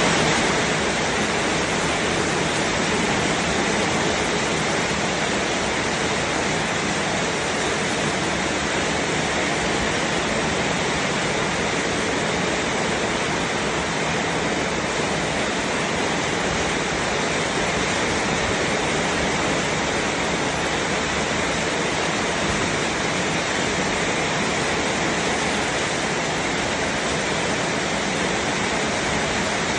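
Heavy rain falling steadily: a loud, even hiss of water with no breaks.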